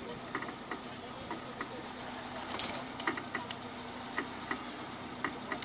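Off-road trial vehicle's engine running low and steady, with irregular sharp clicks throughout, the loudest about two and a half seconds in.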